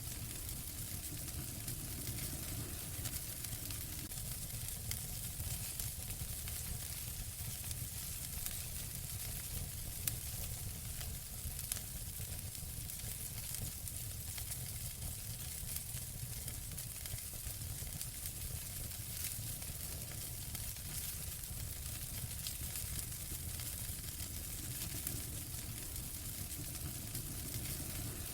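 Wood fire burning in a fireplace: a steady hiss with dense fine crackling and an occasional louder pop.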